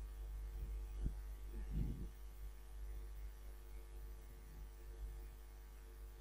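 Steady low electrical hum in the recording, with one sharp click about a second in and a brief low rustle just before two seconds.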